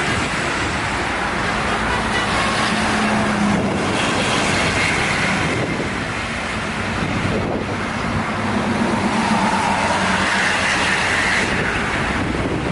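Heavy toll-road traffic passing close by: engine and tyre noise of vehicles going past, swelling twice as larger vehicles pass.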